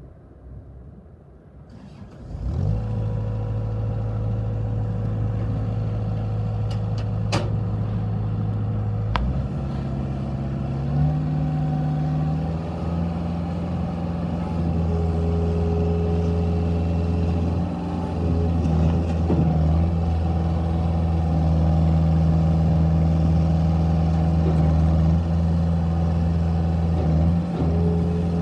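Scattrack 1350 skid steer loader's engine starting up about two and a half seconds in and idling, then throttled up in two steps about nine and eleven seconds in, running steadily at the higher speed.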